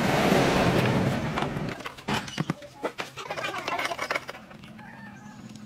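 A loud rushing noise fades out over the first two seconds. Then comes a run of light clicks and clinks as a screwdriver backs small screws out of a children's pocket bike's plastic fairing.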